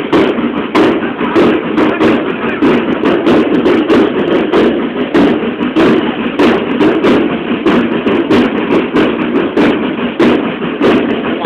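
Parade drums beating a steady marching rhythm, about two sharp beats a second, over a continuous low din.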